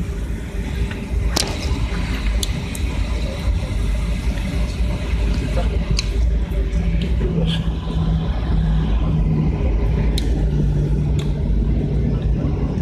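Steady low rumble of a running vehicle, with a low hum that sets in about seven seconds in and a few sharp clicks.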